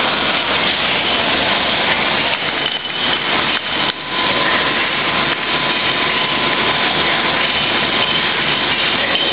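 Steady running noise of factory machinery on a tube screen-printing line, with a faint steady whine through it.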